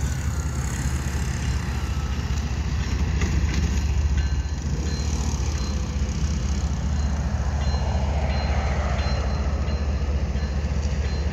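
Steady low rumble of a distant CSX diesel locomotive as the train approaches the crossing.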